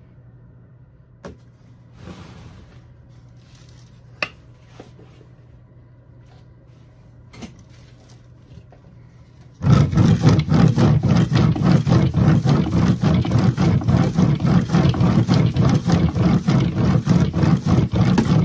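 Wooden-framed wire-mesh sifting screen shaken rapidly back and forth over a bin, rattling and knocking about five times a second as worm castings sift through. Before that, about ten seconds in, there is only quiet handling with a few light knocks.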